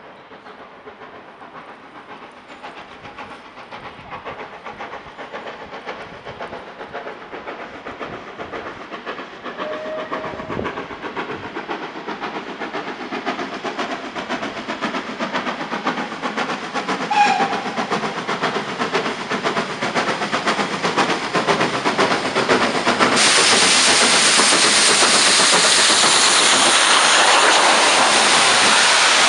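Steam locomotive approaching under load, its exhaust chuffs growing steadily louder. About three-quarters of the way through, a sudden loud, steady hiss takes over as the locomotive passes beneath and its exhaust steam engulfs the microphone.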